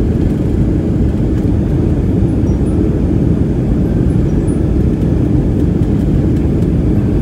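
Steady low rumble of cabin noise inside a Boeing 737-700 in flight: its CFM56-7B turbofan engines and the airflow over the fuselage, heard from a window seat.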